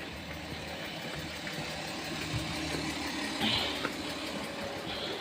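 Road vehicle engine idling steadily, with a brief high chirp about three and a half seconds in.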